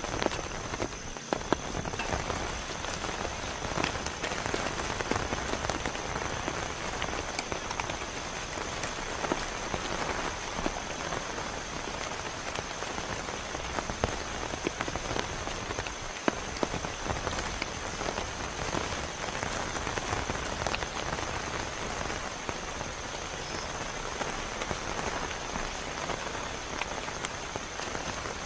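Heavy rain falling steadily, with many sharp individual drop hits close by. A faint steady high tone runs underneath.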